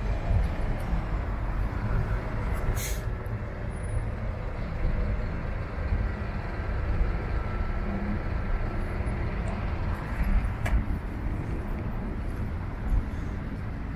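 Steady low rumble of urban outdoor background noise, with road traffic going by, and a short sharp hiss about three seconds in.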